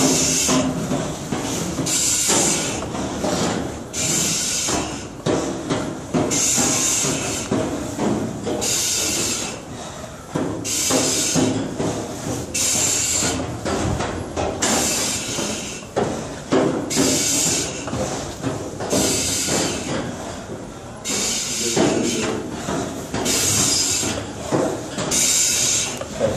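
Firefighter's heavy, rhythmic breathing, a loud hiss on each breath about every one and a half seconds, with knocks of gear against metal in between.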